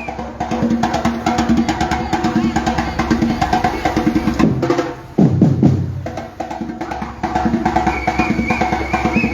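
Batucada drum group playing a fast, dense rhythm of drum strikes, with a brief break about five seconds in before the drums come back in.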